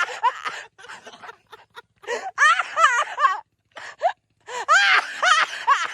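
High-pitched, hard laughter from young men, in two long bursts of quick, wavering cries about two seconds apart.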